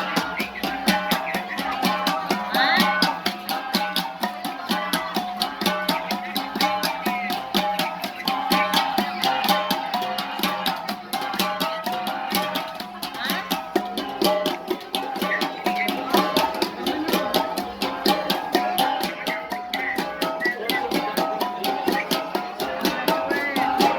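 Kalinga gangsa ensemble, a set of flat bronze gongs struck in a fast, steady rhythm of many quick strokes, the gongs ringing in several pitches over one another.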